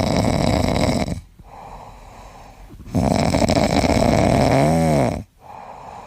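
A pet snoring loudly close to the microphone: two long snores about three seconds apart, with quieter breaths between them. A brief squeak rises and falls in pitch inside the second snore.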